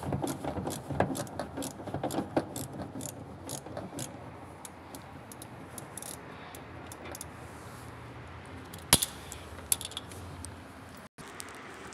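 Ratchet wrench clicking in quick runs as a shipping bolt is undone from the back of a new front-loading washing machine, then slowing to a few scattered clicks, with one sharp metallic click about nine seconds in.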